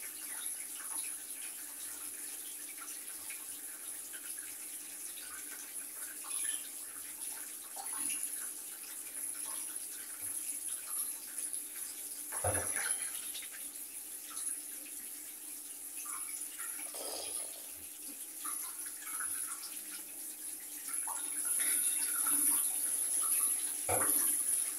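Water running steadily from a hand-held shower head lying in the bottom of a bathtub, with a sharp knock about halfway through and another near the end.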